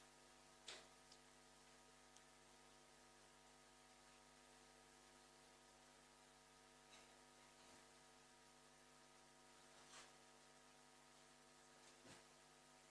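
Near silence: a steady electrical mains hum, with a few faint, brief noises.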